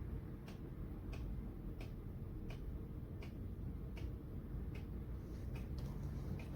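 Hurricane 20-inch box fan running steadily on medium speed, a low even whoosh of moving air, with a light tick repeating about twice a second.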